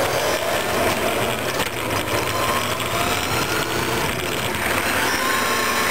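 Radio-controlled model truck's motor and gears whining as it drives, the whine slowly rising in pitch with speed, over a hiss of small tyres on asphalt.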